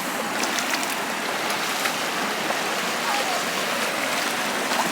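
Rushing river water in a slot canyon, a steady even rush with no breaks, with faint voices of other hikers in the background.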